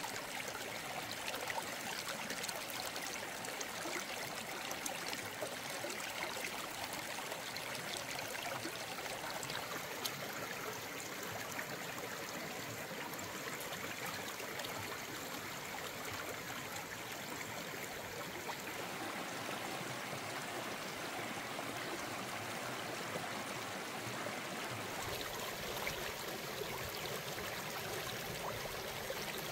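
Running water, like a stream flowing steadily, with small splashes and ticks.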